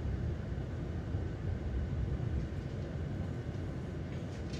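Passenger train in motion heard from inside the coach: a steady low running rumble.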